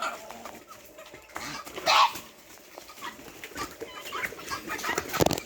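Backyard poultry clucking and calling, with one loud call about two seconds in and a few sharp knocks near the end.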